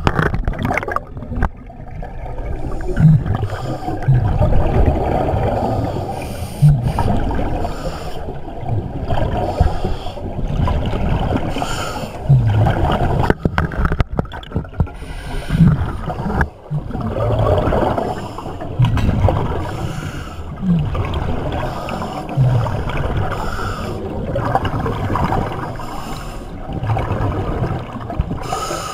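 Scuba diver breathing through a regulator underwater: bubbling, gurgling exhalations come every few seconds, each with short low burbles.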